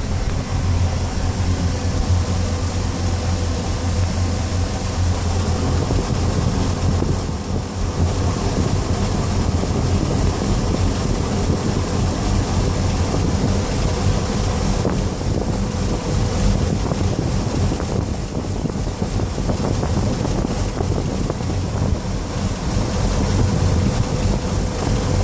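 MerCruiser 350 Mag V8 sterndrive running under way, a steady low engine hum over water rush, with wind buffeting the microphone. The hum is smoothest for the first few seconds, then turns rougher and noisier.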